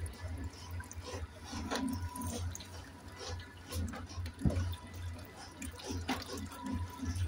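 Freshly pressed mustard oil dripping and trickling from a traditional oil press into a trough, as scattered small drips over a low, pulsing rumble.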